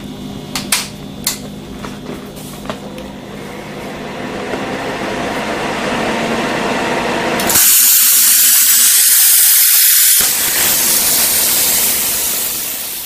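Chicago Electric 95136 plasma cutter switched on with a few clicks, its machine hum running. Then a steady hiss of air through the blowback torch builds, very loud for a couple of seconds about two thirds of the way in, and stays loud before cutting off.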